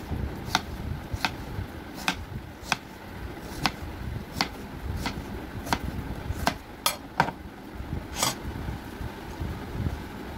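Kitchen knife slicing through watermelon and knocking on a wooden cutting board. About a dozen sharp knocks at a steady pace, one every two-thirds of a second or so, stopping after about eight seconds, over a low rumble.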